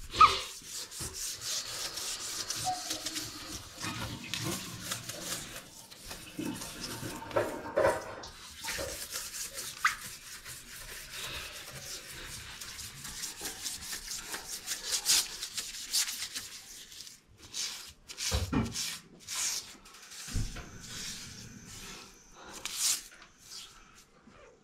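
Steel wool pad scrubbing a dirty surface in rapid back-and-forth strokes, scouring off grime that a cloth would not shift. Near the end the scrubbing gives way to a few separate knocks and handling sounds.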